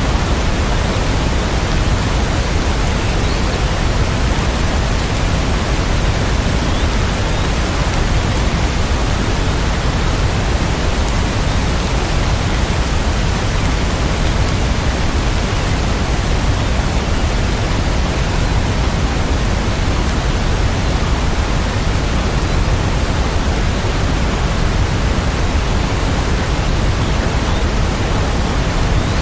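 Steady rain: a dense, even hiss with a strong low rumble beneath it, and no separate drops or thunderclaps standing out.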